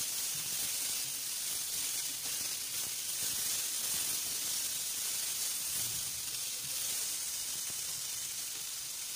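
Homemade longganisa sausages and garlic cloves sizzling as they fry in a frying pan: a steady, high hiss.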